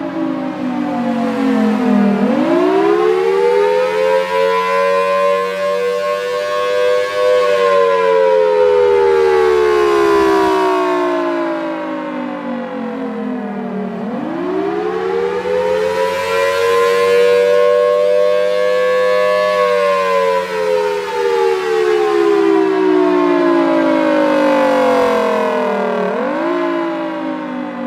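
A 1962 Federal Thunderbolt 1003 siren sounding the Attack signal: a loud, rich wail that climbs quickly, peaks and slides slowly down, about every twelve seconds, with a short rise and fall near the end. A steady low hum runs underneath, and the siren is loud enough to overload the microphone.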